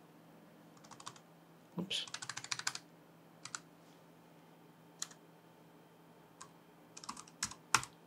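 Typing on a computer keyboard: a few keystrokes about a second in, a quick run of keystrokes around two seconds in, single taps now and then, and another run near the end with one firmer tap.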